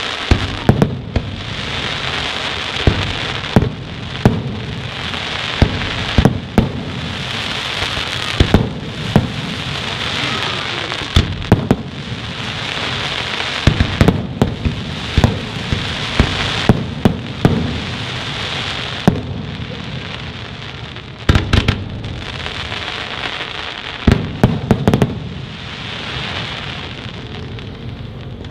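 Aerial firework shells bursting in a display: loud sharp bangs every second or so at irregular intervals, some in quick clusters, over a steady hiss between them.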